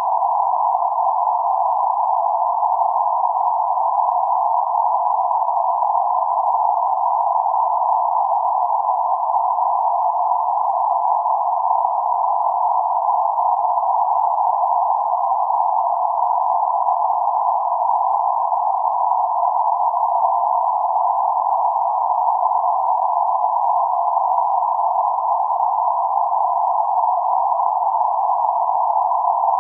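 Synthetic noise filtered to a narrow band centred around 848 Hz: a steady, even hiss in the middle range, with no deep rumble or high sizzle. It does not change.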